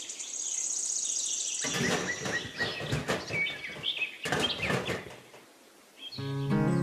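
A high, rapid bird trill, then a stretch of gritty scraping and crunching of sand against a plastic pond form as it is bedded in, with a few bird chirps mixed in. Near the end a cow starts to moo.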